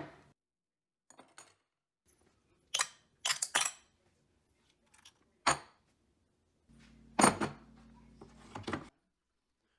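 Metal hand tools (screwdrivers, pliers, an adjustable wrench and a small magnetic parts bowl of bits) being set down one at a time into a shallow tool tray, giving sharp clinks and clatters at irregular intervals.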